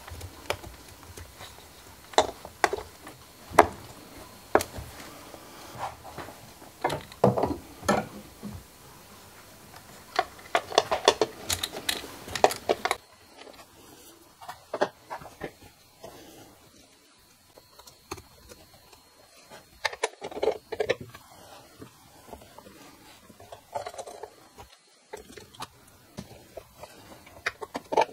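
Irregular clicks, taps and light plastic-and-metal knocks of hands handling the ignition coils, connectors and small nuts on a BMW M62 V8's cylinder head, with no engine running. The knocks come thick and loud for the first half, then sparser and quieter from about 13 seconds in.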